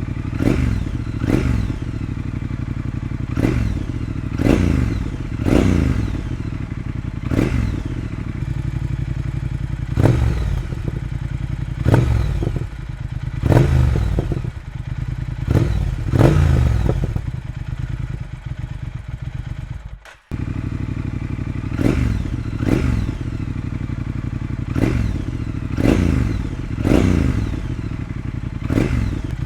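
Triumph Speed Twin parallel-twin engine idling and being blipped again and again, each short rev rising and dropping back to idle, first through the standard exhaust. After a sudden break about 20 seconds in it runs the same way with a decat X-pipe fitted, giving a deeper grunt and gurgly burbling on the roll-off of the throttle.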